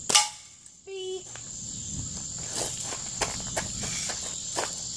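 A single sharp BB gun shot from a Daisy BB gun right at the start, then a run of small clicks and scuffs of handling and movement, under a steady high insect buzz.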